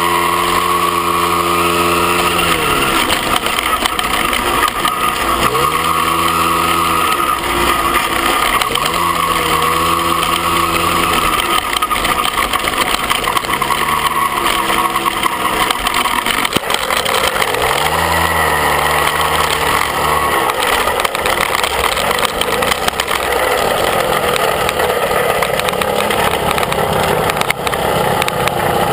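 Moped engine under way, its note repeatedly dropping and climbing again as the throttle is eased and reopened, with wind rushing over the microphone.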